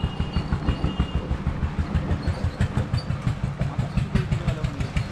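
Engine idling, a steady low thumping several beats a second with a light ticking over it.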